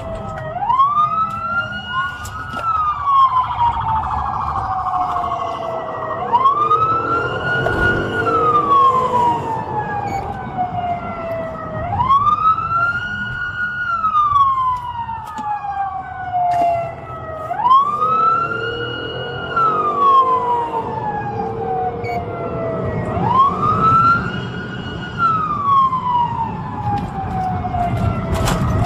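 Police car siren on a slow wail: each cycle sweeps up quickly and falls away slowly, repeating about every six seconds. It is heard from inside a moving patrol car, over engine and road noise.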